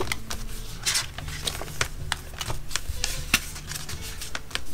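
Paper sticker-book pages and sticker sheets being handled: rustling with scattered small ticks and taps.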